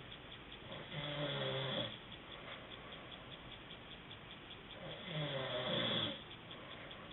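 A man snoring in his sleep: two snores, each a little over a second long, about four seconds apart.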